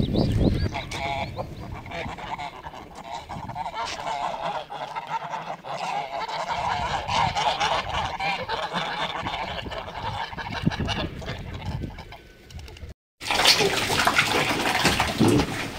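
A flock of domestic geese calling to one another, many overlapping calls, louder at first and softer in the middle. After a short break about thirteen seconds in, a louder splashing and rustling takes over as feed is tipped from a bucket into a trough for piglets.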